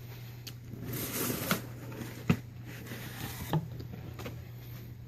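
Cardboard box being opened and its contents handled: rustling with a few sharp clicks and crackles, over a steady low hum.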